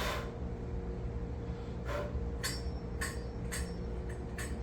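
Short metallic clicks and clinks, one sharp one at the start and then a run of about two a second from about two seconds in, as the forge burner's metal parts are worked loose and handled.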